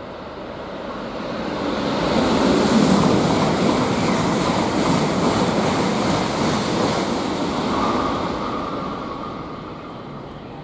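E2 series Shinkansen passing through the station at speed on a through track: a rushing noise that builds over about two seconds, holds loud for several seconds, then fades away near the end.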